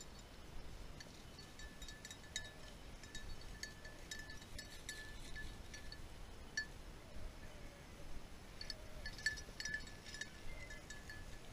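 A small metal bell jingling on and off, ringing at one steady pitch with light clinks, pausing for about two seconds in the middle.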